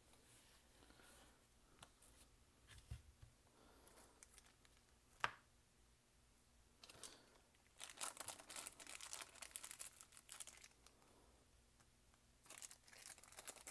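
Faint handling of small gun parts on a tabletop: a single sharp click about five seconds in, then a small plastic zip bag of parts crinkling for a couple of seconds, and again briefly near the end.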